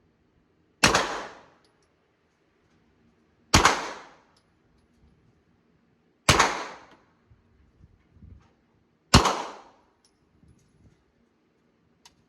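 Four single gunshots, evenly spaced about three seconds apart, each with a short ringing tail, and faint small clicks between shots.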